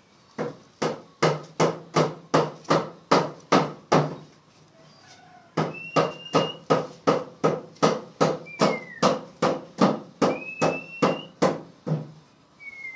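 A rhythmic run of sharp knocks, about three a second, in two long bursts with a pause about four seconds in. A few faint short whistled bird notes slide up or down over the second burst.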